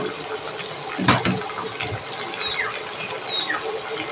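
Potatoes, pointed gourd and squash with rice and spices sizzling steadily in hot oil in a wok, with a metal spatula scraping the pan about a second in.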